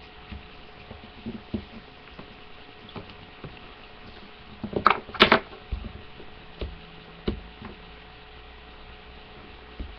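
Scattered light taps and clicks of Play-Doh and plastic modelling tools being handled on a table, with a louder clatter about five seconds in, over a steady faint electrical hum.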